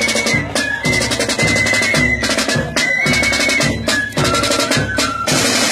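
Marching band playing: rapid snare drum rolls and bass drum beats under a high held melody line, running into a continuous snare roll near the end.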